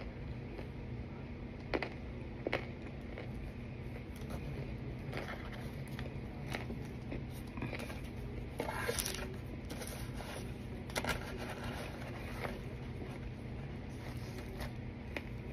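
Chewing and crunching on hard pieces of baked cornstarch mixed with baking powder: scattered crisp crunches, with a longer grinding crunch about nine seconds in.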